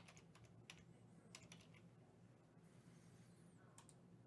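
Near silence: low room hum with a few faint, scattered clicks, likely from computer input.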